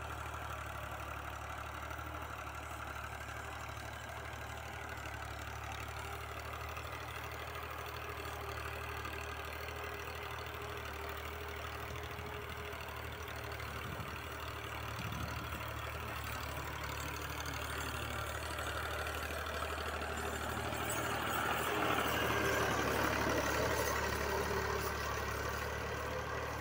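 Al-Ghazi farm tractor's diesel engine running steadily under load while dragging a cultivator and wooden plank leveller (suhaga) over plowed soil. It grows louder from about three quarters of the way through as the tractor comes close.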